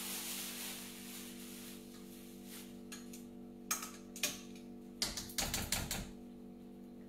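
Metal kitchen tongs clicking and knocking against a metal pressure-cooker pot as a whole cooked chicken is lifted out of the rice: a couple of sharp clicks a little past halfway, then a quick cluster of clicks and knocks about a second long, over a steady low hum.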